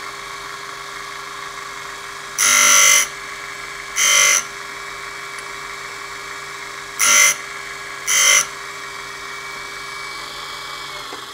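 AR5 tool and cutter grinder running steadily, its wheel grinding four short passes on a drill point held in a conical drill-grinding jig, in two pairs, each pass a brief hissing grind that rises well above the motor hum.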